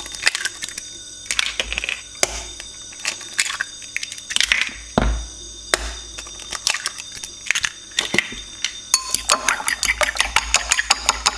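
Two eggs cracked against a white ceramic bowl and dropped in, with scattered sharp cracks and taps of shell on the rim. About nine seconds in, a metal utensil starts beating the eggs in the bowl, clicking quickly against the ceramic at about six strokes a second.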